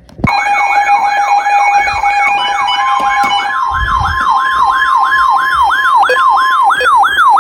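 Emergency alert tones: a steady alert tone with a yelping siren sweep layered over it, each sweep falling in pitch, about three a second. About three seconds in, the steady tone shifts to a higher pitch, and near the end it breaks into short pulses.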